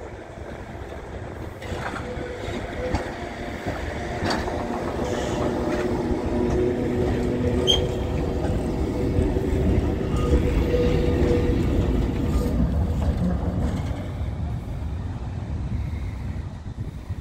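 Lowa ET54 tram with two trailer cars running past over the rails, growing louder to a peak about ten seconds in and then fading. A steady whining tone runs under it, and there are a couple of sharp clicks as it crosses the points.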